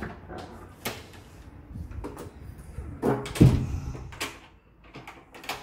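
Wrought-iron grille door being pushed shut: scattered metallic clicks and knocks, with the loudest clank about three and a half seconds in.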